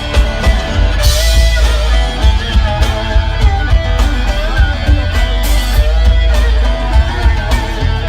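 Three-piece rock band playing live: guitar over heavy bass and drums, with cymbal crashes about a second in and again a little past the middle.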